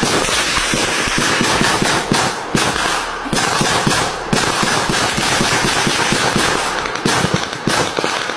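Automatic gunfire: dense, rapid shots fired in bursts, with short lulls between them.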